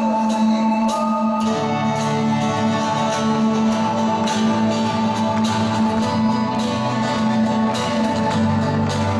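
Live pop-rock band playing an instrumental passage without vocals: acoustic and electric guitars over held keyboard chords, with drum and cymbal strokes. Low bass notes join about a second and a half in.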